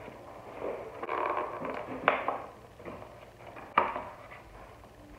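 Foil crinkling and crackling as the lid is peeled off an aluminum takeout bowl, with a couple of sharp clicks.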